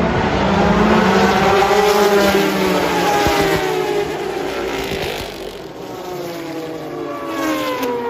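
Mazda Group C race car's four-rotor rotary engine running at high revs, its pitch rising and falling, loudest in the first few seconds. Near the end the pitch falls steeply.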